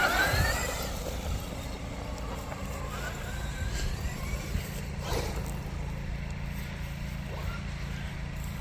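Electric motor of a Traxxas X-Maxx RC monster truck whining, rising in pitch as it accelerates during the first second and again a few seconds later, over a steady low rumble.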